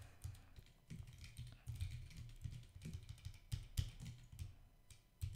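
Typing on a computer keyboard: a run of irregular keystroke clicks, with a few sharper clicks in the second half.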